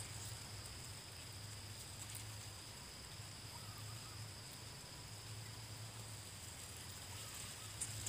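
Faint outdoor background with no distinct event: a steady high-pitched drone over a low hum.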